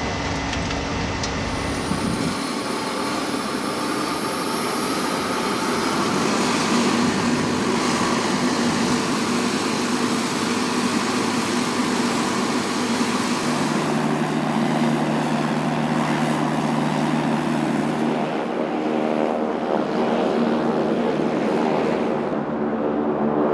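MQ-9 Reaper's turboprop engine running steadily. A high whine rises in pitch a few seconds in, and a steady low hum joins about halfway through.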